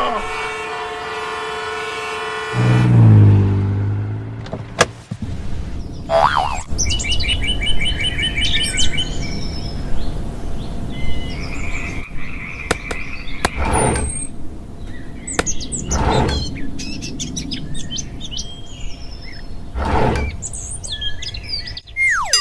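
Birds chirping over a steady outdoor background, with a few dull knocks in the second half. It opens with a long steady tone, then a loud low sound falling in pitch.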